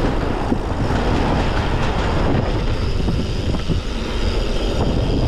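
Mountain bike riding a rough dirt trail: a steady rumble of tyres over dirt and rocks, with small rattles and clicks from the bike and wind buffeting the microphone.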